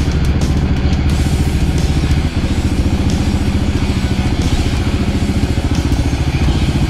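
Yamaha Raptor 700 ATV's single-cylinder four-stroke engine running under way, a steady low pulsing, with a brief dip in loudness about two seconds in.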